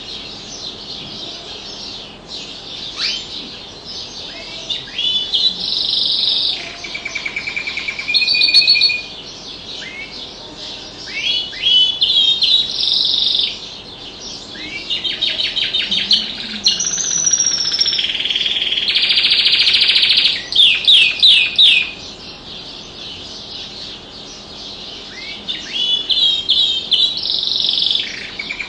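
Domestic canary singing in phrases of rapid repeated notes and trills, with a fast buzzing roll about two-thirds through, then a pause of a few seconds before a last phrase near the end.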